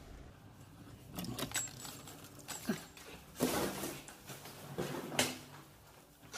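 Handling noises: a string of short knocks, rattles and scrapes, roughly a second apart.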